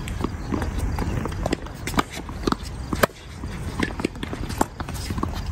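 Tennis rally on a hard court: sharp pops of racket strings striking the ball and the ball bouncing, among lighter taps of sneaker footsteps. The loudest strike comes about three seconds in.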